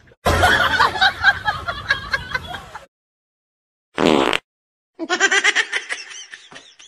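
A person laughing in short bursts, then after a pause a single brief cry about four seconds in, followed by rapid, pulsing laughter again from about five seconds.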